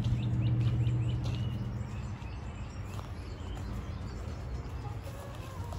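A bird calling a quick run of short rising chirps over a low steady hum; the hum fades out about two seconds in, leaving outdoor background noise with a few faint chirps.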